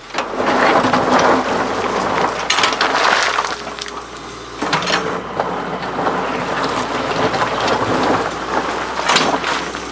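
Water pouring and splashing heavily, a dense rain-like rush with scattered sharp splashes, over the low steady running of a large excavator's engine.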